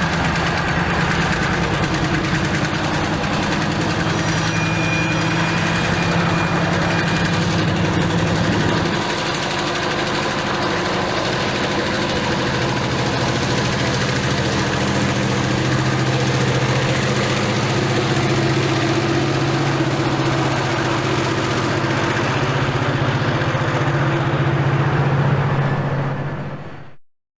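Diesel-electric locomotive engine working hard at high throttle: a loud, steady, heavy engine drone. It shifts slightly about nine seconds in, builds a little, then cuts off abruptly near the end.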